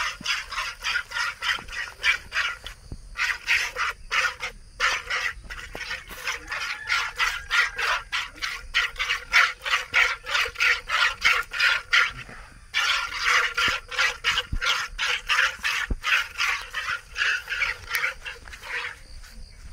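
Milk squirting by hand from a cow's teats into a plastic bucket in a quick, even rhythm of about four squirts a second, with a short break about two-thirds of the way through. The squirts stop near the end.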